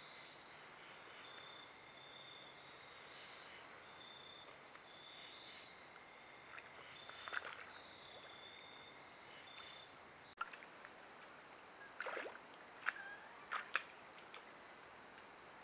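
Insects chirping in a steady repeating pulse over trail-camera microphone hiss. About ten seconds in the sound cuts abruptly, and a beaver at the water's edge makes a few short splashes and sloshes in quick succession.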